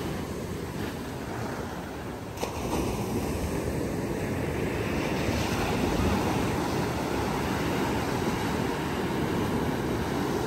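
Sea surf breaking and washing up the sand in a steady rush.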